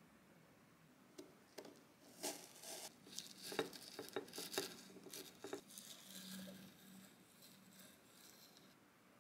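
A knife cutting down through a half-frozen cheesecake with crumble topping: crunchy crackling and a run of sharp clicks, then softer scraping near the end. The crunch comes from the cream layer, which is still frozen and icy.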